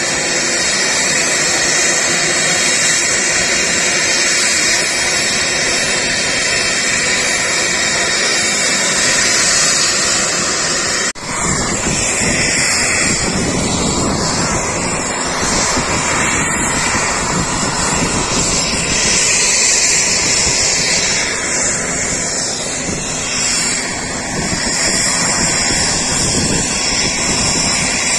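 Jet aircraft engine noise, loud and steady, with a sudden brief dip about eleven seconds in.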